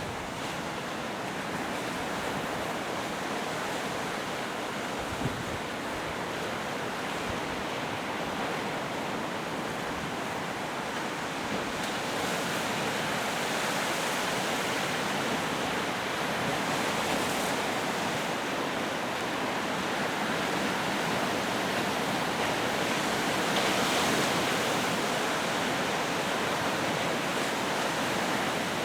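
Lake Ontario waves washing and breaking against the shore, a steady rush that swells a little about halfway through and again near the end.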